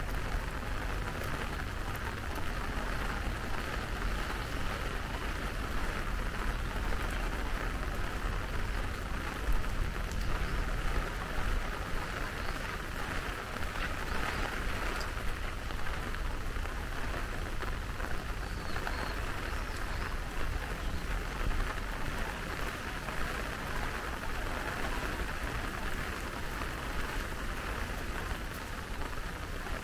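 Steady rain, an even hiss of many small drops with a low rumble underneath.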